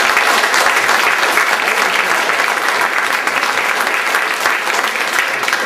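Audience applauding: a dense, steady clatter of many hands clapping, easing off slightly near the end.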